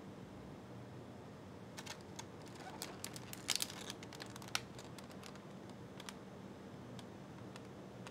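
Light plastic clicks and crackles of packaging being handled, an irregular run densest about three and a half seconds in, then a few single clicks. A low steady hum runs underneath.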